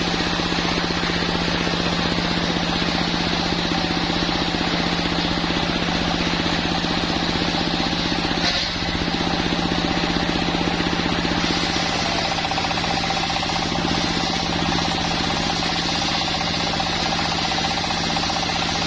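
Sawmill machine running steadily with a low, evenly pulsing engine drone, while sawing waru wood; a higher steady whine joins about halfway through.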